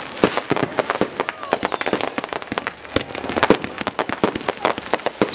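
Many consumer fireworks going off at once: a dense, irregular run of sharp pops and bangs, with a whistling firework's whistle falling in pitch for about a second, a second and a half in.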